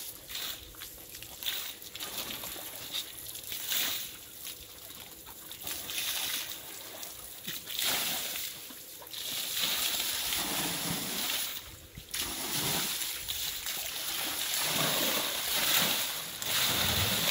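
Water splashing and sloshing in a concrete trough as an Asian elephant moves and wallows in it, with water spilling over the trough's edge. The splashing grows louder about ten seconds in.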